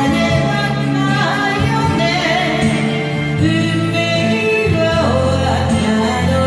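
A Japanese kayōkyoku song: a backing track with steady bass and a singer's voice holding and bending long notes.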